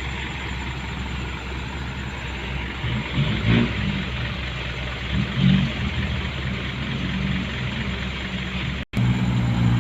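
A motor vehicle engine running steadily under a constant rushing noise. The sound drops out completely for an instant near the end.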